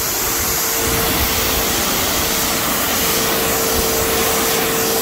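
Pressure washer spraying a jet of water onto a car's side panels: a steady hiss of spray with a steady hum underneath.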